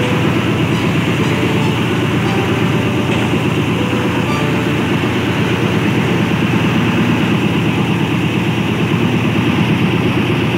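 A purse seine fishing boat's engine running steadily and loudly, with a fast, even pulsing.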